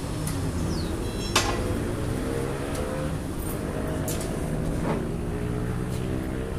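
Steel tyre levers clinking against a tractor's steel wheel rim as the tyre bead is pried away from it, a few sharp metallic clinks over a steady low motor hum.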